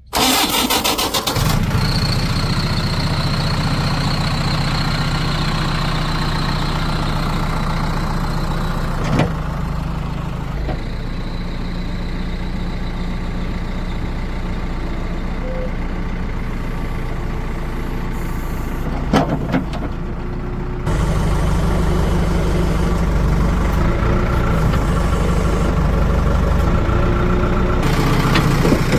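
Diesel engine of heavy farm and earthmoving machinery running steadily, with a few short knocks. About two-thirds of the way through, the engine note turns louder and heavier.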